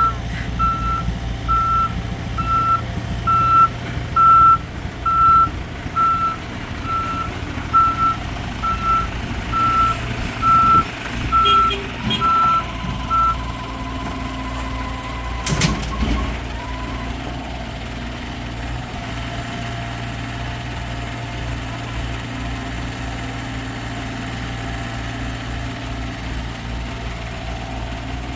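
Diesel earthmoving machine's reverse alarm beeping steadily, a little faster than once a second, over the engine running. About halfway the beeping stops, a short sharp sound follows, and the engine keeps running.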